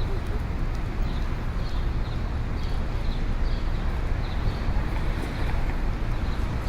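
Busy city street ambience: a steady din of traffic and crowd noise, heavy in the low end, with faint light ticks about once or twice a second.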